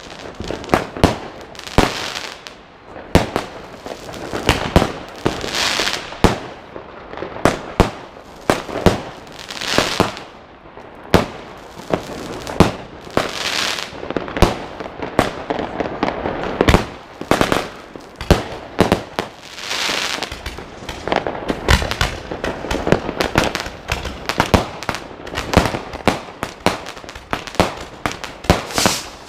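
Many fireworks and firecrackers going off at once: a dense, irregular string of sharp bangs with no let-up, and crackling, hissing bursts every few seconds.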